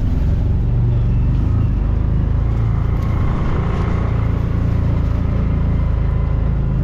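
Side-by-side utility vehicle's engine running steadily as it drives over rough ground, heard from inside its cab as a loud, even drone.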